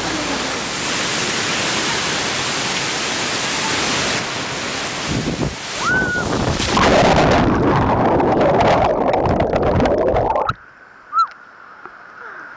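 Waterfall pouring close by: a loud, steady rush of falling water that grows heavier and splashier about seven seconds in, then cuts off suddenly about ten and a half seconds in.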